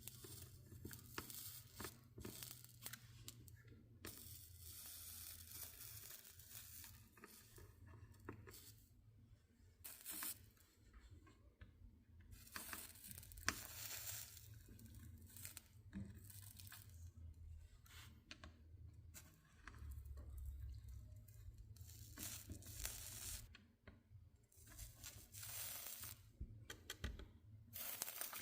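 Soldering iron melting solder along stained glass seams: a faint crackling sizzle of flux, coming in stretches of a second or two with short pauses between.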